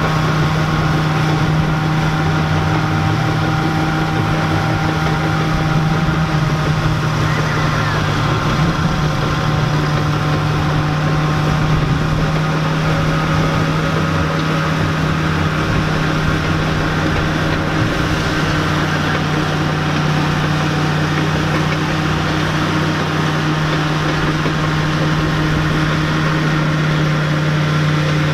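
Allis-Chalmers crawler tractor's engine running at a steady, even speed under load as it drags a pulling sled slowly down the track.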